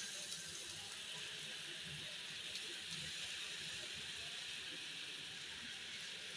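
Uttapam batter sizzling on a hot, oiled non-stick tawa as it is spread with a silicone spatula: a steady hiss.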